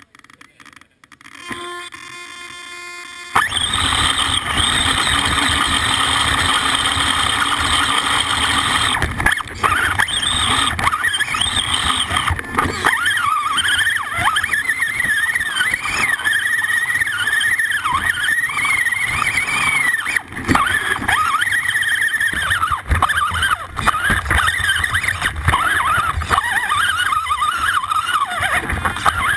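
Axial AX10 RC rock crawler's electric motor and gear drivetrain whining, the pitch rising and falling as the throttle changes, over loud rattling and scraping of the chassis and tyres crawling over leaves and rocks. It is picked up by a camera mounted on the truck's frame, so the drivetrain is close and loud. It starts about three seconds in, after a quieter start.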